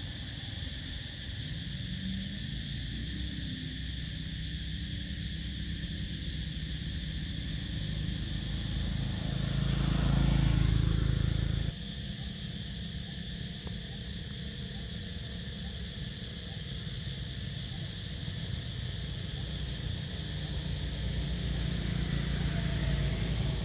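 Outdoor background noise: a steady low rumble under a thin, steady high-pitched hum. A louder engine-like swell builds about ten seconds in and cuts off suddenly. Near the end, a motorbike pulling a cart comes up along the road.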